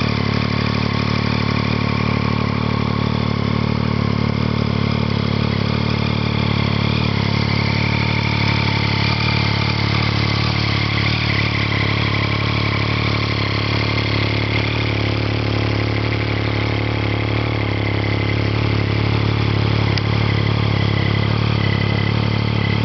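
Triumph Street Triple R's 675 cc inline three-cylinder engine idling steadily through an aftermarket Arrow exhaust.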